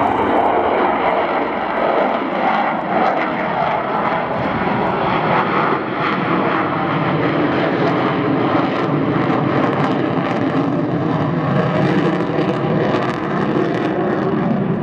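Avro Vulcan XH558's four Rolls-Royce Olympus turbojets running at a steady, loud level as the delta-wing bomber flies overhead.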